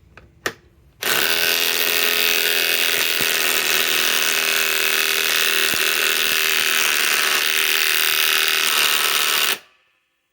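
RIDGID R872081 subcompact 1/2-inch impact wrench on a Flex 6 Ah stacked lithium battery hammering steadily for about eight and a half seconds. It starts about a second in and stops abruptly. The fastener does not break loose.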